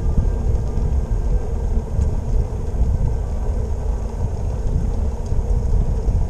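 Wind buffeting the microphone of a camera riding on a moving bicycle: a continuous, uneven low rumble.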